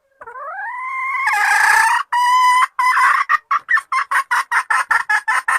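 Red junglefowl hen cackling: one long drawn-out call that rises in pitch, a second shorter held note, then a fast run of short clucks, about five a second.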